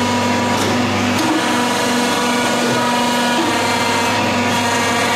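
Kids' amusement excavator ride's electric motor running with a steady whirring hum as the boom and bucket are worked, its lowest part of the hum thinning a little about a second in.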